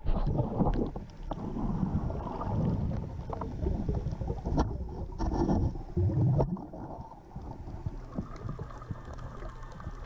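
Muffled underwater water noise picked up by a diver's camera: an uneven low rumble with scattered small clicks, and a sharper knock a little before halfway and another about two-thirds through.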